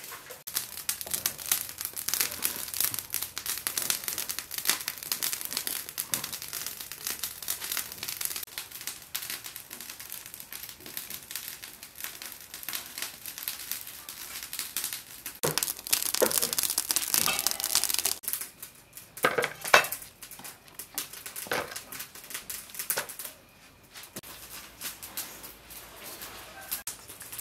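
Beef leg skin crackling as it is burned on a wire grill over the fire: a dense, even crackle that stops about 18 seconds in, followed by a few scattered knocks.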